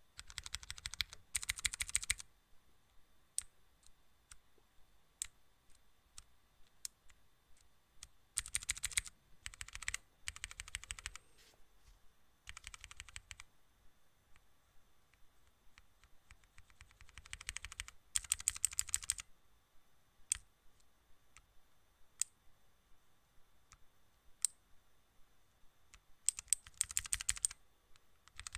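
Typing on a keyboard: bursts of rapid key clicks, each lasting a second or two, with single clicks between them.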